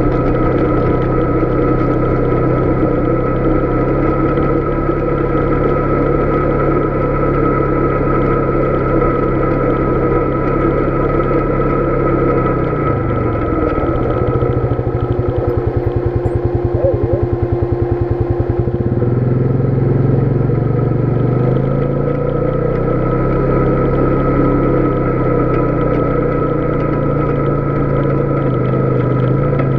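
Polaris Sportsman 570 ATV's single-cylinder engine running under way; about 13 seconds in the engine note falls to a slow, pulsing near-idle, then picks up again about 19 seconds in and runs steadily to the end.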